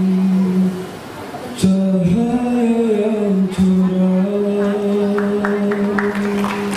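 Male a cappella nasyid group singing long held notes in close harmony, the lead voice over a sustained chord, with a short break about a second in. Scattered hand-clapping starts about five seconds in and thickens toward the end.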